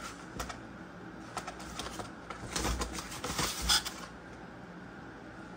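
Packs of 3M Pro Grade sandpaper in card sleeves shuffled in a gloved hand: irregular papery rustles and light clicks, loudest about three seconds in, stopping about four seconds in.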